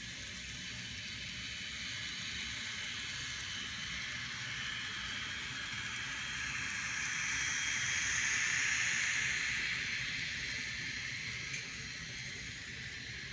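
N scale model passenger train running on its track, a steady hissing rumble of wheels and small motor that grows louder as the train passes close by about eight seconds in, then fades again.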